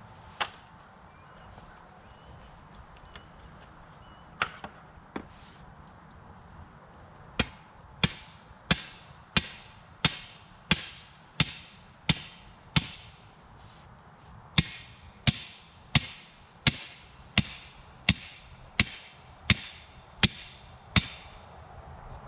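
Hammer blows driving a fence post for deer netting: a few single knocks, then two runs of about ten evenly spaced strikes, roughly three every two seconds, with a short pause between. The strikes in the second run carry a ringing note.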